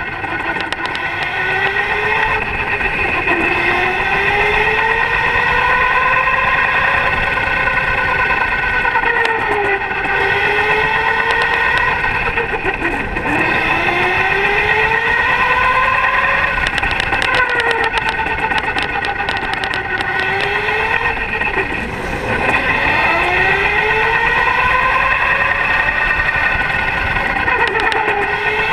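Electric go-kart's motor whining, its pitch rising as the kart accelerates and falling as it slows for corners, over and over, with a steady rushing noise underneath.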